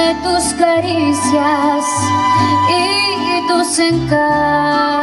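A mariachi band playing a ranchera, with wavering violin or voice lines over strummed guitars and a stepping bass line, and a female singer's voice in the mix.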